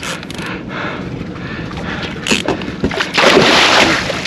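Water splashing and spray at a boat's side as a hooked mahi-mahi is gaffed, with a sharp knock and then a loud burst of splashing about three seconds in.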